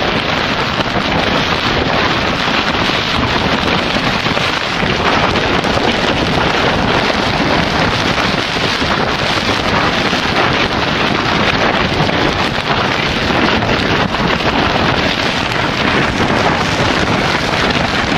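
Snowstorm wind buffeting a tent, heard from inside as a loud, steady rush of noise with constant fine rattling texture.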